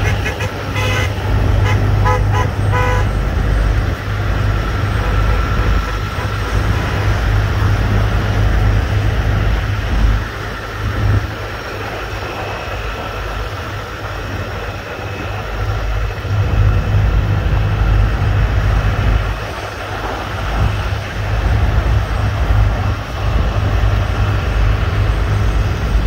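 Vehicle horns tooting in a quick string of short blasts in the first few seconds, over a steady heavy low rumble of idling trucks and traffic.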